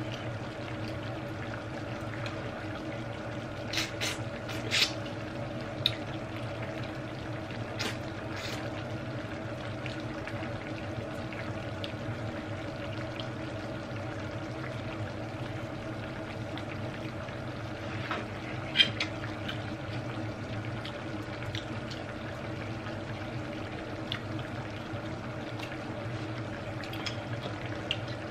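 Seafood-and-coconut-milk stew simmering steadily in a pan on a tabletop cooker, with a steady hum under it. A few sharp clicks and cracks from eating, of crab shell and fork on plate, come and go; the loudest falls about two-thirds of the way through.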